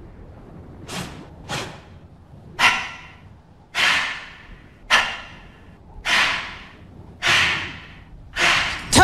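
A rhythmic series of eight sharp, whoosh-like percussive hits on a film soundtrack, each with a short echoing tail, coming about once a second. Music kicks in right at the end.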